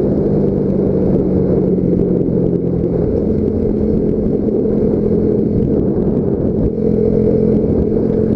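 Yamaha Factor 150 motorcycle's single-cylinder engine running under way at road speed. Its note shifts about three seconds in, dips briefly near seven seconds, then picks up again.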